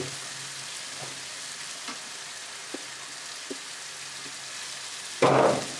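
Chicken karahi sizzling steadily in a pan on the hob, with a few faint pops. About five seconds in, a brief loud rustling noise.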